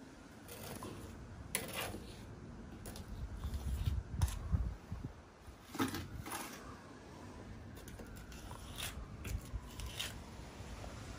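A trowel scraping and tapping as cement mortar is pressed into the brick wall around a boiler flue pipe, in short scrapes and clicks at irregular intervals.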